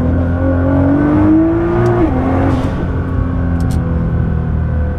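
Nissan GT-R's twin-turbo V6 accelerating hard, its engine note rising steadily in pitch, then dropping sharply about two seconds in as the car shifts or lets off, and running on at a steadier lower pitch.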